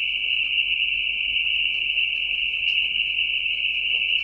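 A steady high-pitched hissing whine held at one level, with no change in pitch or loudness.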